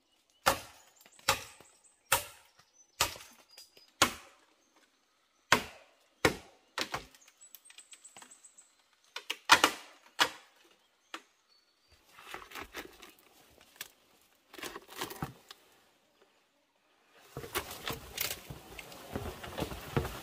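A blade chopping into a green bamboo stem: sharp strikes about one a second, then fewer and irregular. Near the end a longer rustling and scraping of bamboo and leaves.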